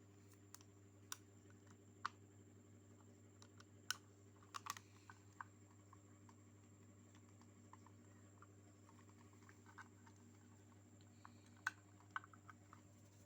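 Faint, irregular light clicks and taps from small parts and tools being handled during a repair, over a low steady electrical hum. The clicks bunch up about four to five seconds in and again near the end.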